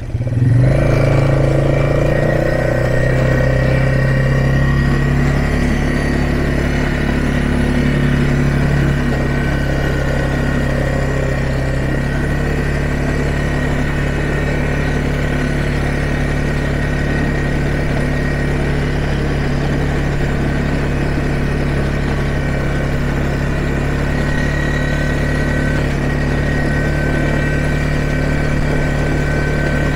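ATV engine running steadily as the quad is ridden along at an even pace, a little louder for the first several seconds before settling.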